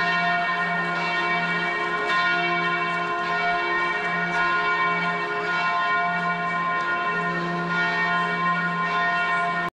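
Church bells ringing, several pitches overlapping into a continuous ringing sound whose deeper tones swell and fade about once a second; it cuts off abruptly at the end.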